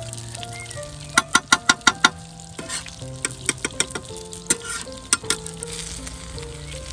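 Chapli kababs sizzling as they fry in oil on a large flat pan, with a quick run of sharp clicks about a second in and a few more later. Soft background music of held notes plays underneath.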